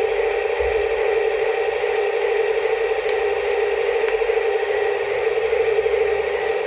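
Small electric motor of a mini RC construction vehicle running with a steady, fluttering whine.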